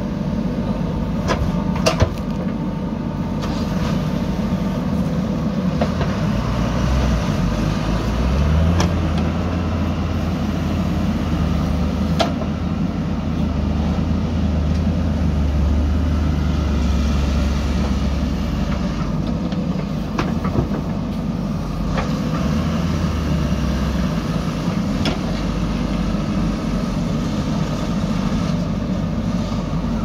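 JCB 3DX backhoe loader's diesel engine running steadily under load while the backhoe digs soil. A deeper hum swells between about seven and twenty-four seconds in, and a few sharp knocks stand out, twice near the start and once each near the middle and later on.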